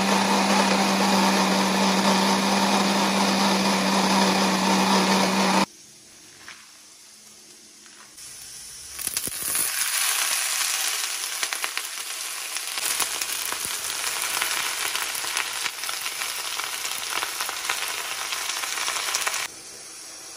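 Countertop blender grinding soaked rice with milk, a steady hum that cuts off about six seconds in. A few seconds later, leafy greens (saag) sizzle as they fry in hot oil in a wok, stopping shortly before the end.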